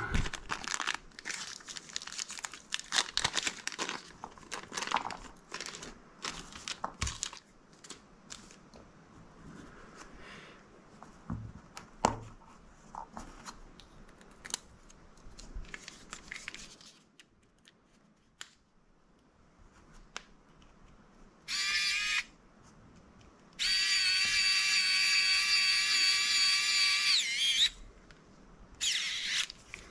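Crinkling of a small plastic parts bag and clicks of small parts being handled, then a small electric screwdriver's motor whining in three runs: a short one, one of about four seconds that drops in pitch as it stops, and another short one near the end.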